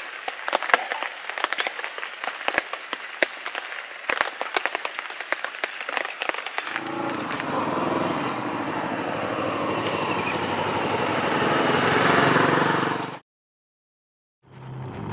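Dense, irregular crackling for about six seconds, then a steady rumbling noise with a low hum that grows louder and cuts off suddenly.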